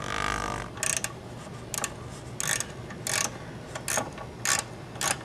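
Socket ratchet clicking in short bursts, one every half-second or so, as its 10 mm socket backs out the oil drain plug on the mini bike's four-stroke engine. It opens with a brief rasp.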